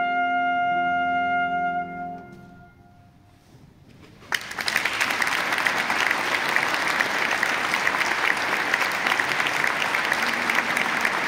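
Trumpet and grand piano holding a final note that stops about two seconds in and dies away in the church's reverberation. After a short hush, applause breaks out suddenly and keeps going.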